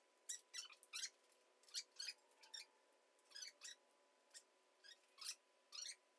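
Irregular small clicks and snaps, a few a second, of gloved hands fitting parts and wiring on top of an LS V8 engine on a dyno, over a faint steady hum.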